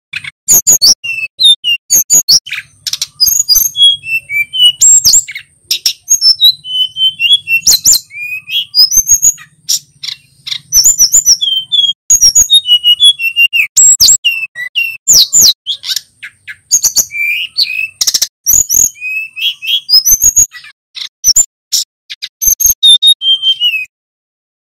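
Male sikatan gunung blue flycatcher singing: a long run of quick, high whistled phrases and trills with sharp clicking notes between them, stopping abruptly near the end.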